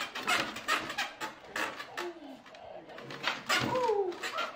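A dog whining in a few short falling whines, the longest near the end, among knocks and rattles on the wooden pen.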